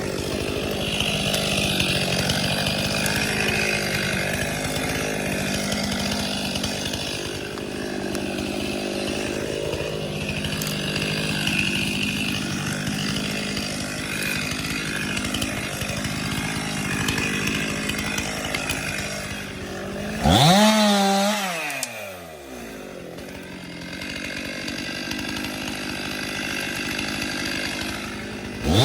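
Chainsaw running steadily under load while cutting wood. About two-thirds of the way through it is revved sharply up and falls back to a quieter idle, then it runs again and is revved once more at the very end.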